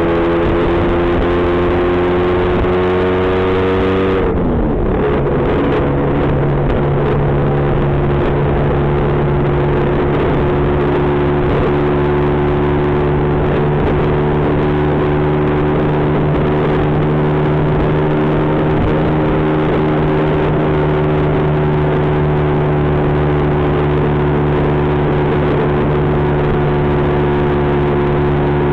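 Lambretta GP scooter's single-cylinder two-stroke engine running on the move. Its pitch rises for the first few seconds, drops sharply about four seconds in, then holds almost steady at a lower pitch.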